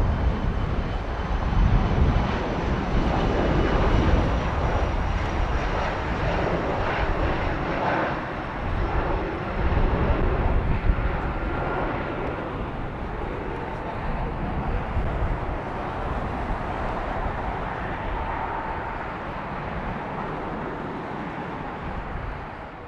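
Jet aircraft engines running loud as a jet goes by on the runway, with a faint high turbine whine early on. The noise gradually fades from about halfway through as the aircraft moves off.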